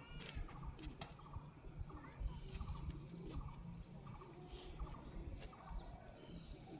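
Faint, short animal chirps or squeaks repeated many times.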